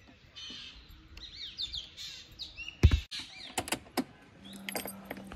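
Small birds chirping and singing in the trees, many short rising and falling calls. A single loud thump about three seconds in, with a few lighter clicks after it, and a low steady hum near the end.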